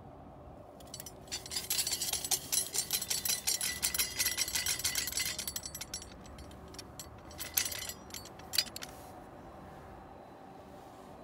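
Steel hole cutter being worked down into a golf green, its blade crunching and scraping through turf and soil for about five seconds, followed by two sharp clicks.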